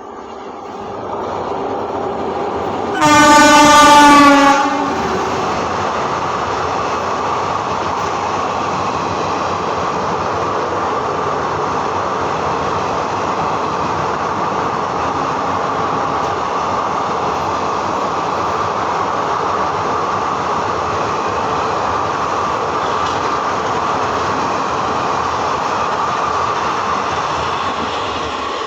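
A WAP7 electric locomotive's horn sounds one loud blast of about a second and a half, a few seconds in, then a train of ICF coaches runs through at about 110 km/h without stopping, a steady rush of wheels on rails that eases off near the end.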